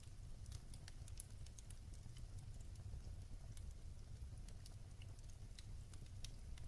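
Wood fire crackling in a fireplace: irregular sharp snaps and pops, several a second, over a low steady rumble.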